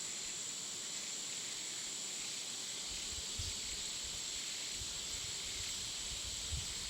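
Evening insect chorus: a steady, high-pitched drone of insects over an even hiss, with a few soft low bumps in the second half.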